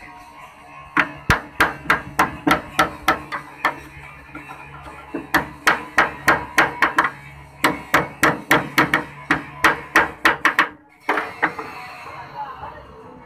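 Hammer striking a truck's steel body panel in quick runs of sharp metallic blows, about three to four a second, with short pauses between runs: panel beating to work the torch-heated metal back into shape. Near the end the blows stop and a steady hiss from the gas torch takes over.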